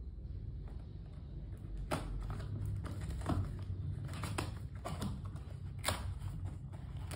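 A small blade slitting the packing tape on a cardboard phone box, with a few short scrapes and clicks as the box is worked open.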